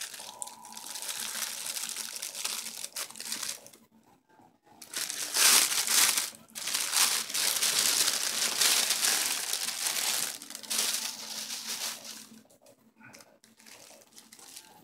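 Clear plastic wrapping crinkling as it is handled and pulled off a small package by hand. The crinkling pauses briefly about four seconds in, is loudest through the middle stretch, and fades to softer rustling near the end.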